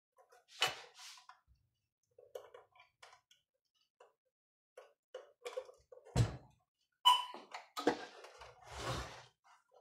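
Scattered small clicks and taps of hands working on a patient monitor's internals, seating flex cables into their connectors, with louder knocks about six and seven seconds in and a short scrape near the end.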